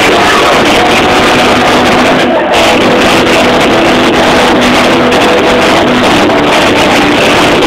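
Live punk rock band playing: guitar over a drum kit, recorded so loud that the sound is overloaded and distorted, with held guitar notes running through the wash of cymbals and drums.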